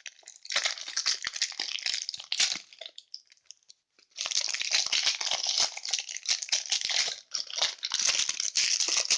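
A crinkly packet being opened and handled close to the microphone: two long stretches of dense crinkling and tearing, with a quiet pause of about a second between them.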